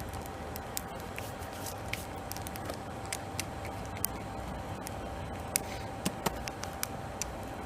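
Forge running with a steady rumbling hum while a railroad spike heats in it, broken by scattered sharp crackles and pops, several of them clustered in the second half.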